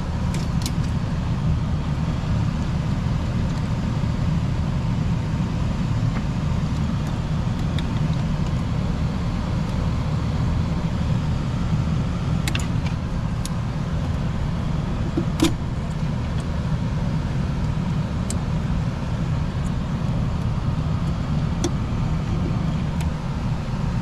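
A steady low mechanical hum of running equipment, with a few small clicks and taps as wiring and meter test leads are handled in the control compartment of a heat pump package unit.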